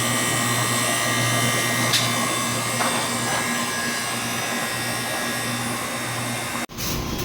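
Electric motor running steadily with a constant hum and a high whine. It cuts off abruptly near the end, and a different, rougher running sound follows.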